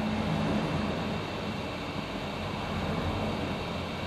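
Hot air rework station blowing steadily on a phone's charging-port board, heating the solder to lift the old USB port off.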